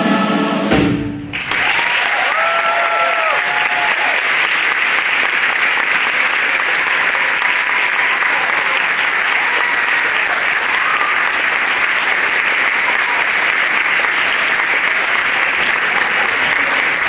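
A choir with band holds a final chord that cuts off about a second in, then the audience applauds steadily, with a few cheers.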